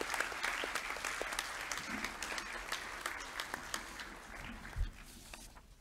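An audience applauding, many hands clapping together. The applause thins out over the last couple of seconds and stops just before the end, with one low thump shortly before it dies away.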